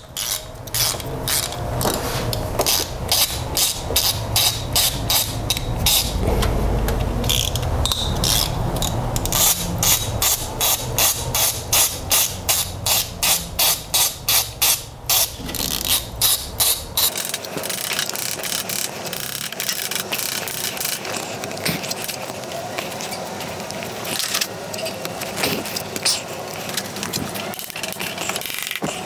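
Hand ratchet clicking steadily, a few clicks a second, as it spins out the 10 mm bolts holding the camshaft seal housing; the clicking stops about 17 seconds in, followed by lighter, irregular clinks and knocks of tools on metal.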